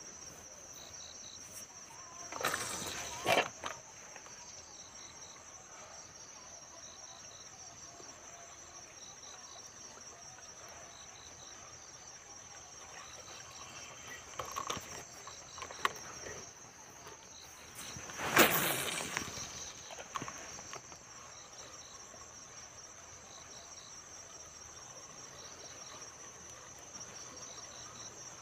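Insects chirring steadily in a high, pulsing drone. A few short bursts of noise break in about three seconds in, around fifteen seconds, and loudest around eighteen seconds.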